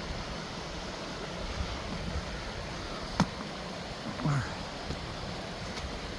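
Steady rush of flowing creek water, with a single sharp click about three seconds in.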